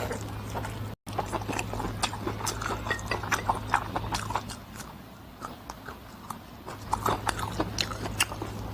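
Close-miked mukbang eating sounds: a person chewing and biting food, heard as a run of irregular short, wet clicks and crackles. The sound cuts out for an instant about a second in.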